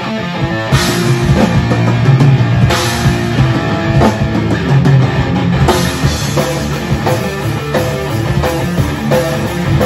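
A rock band playing: electric guitar over a drum kit, with cymbal crashes about a second in, near three seconds and near six.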